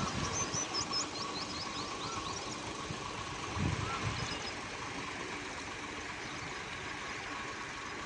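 Tractor engine running steadily, with a run of quick high chirps in the first second or so and a low thump about three and a half seconds in.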